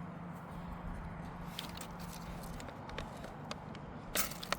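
Ferro rod scraped with a striker to throw sparks onto a fire starter: a few light scrapes, then two sharp strikes near the end, the last of which lights it.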